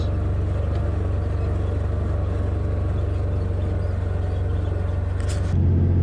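Pickup truck driving on a dirt road, heard from inside the cab: steady low engine and road rumble. About five and a half seconds in it changes abruptly to a louder, deeper hum.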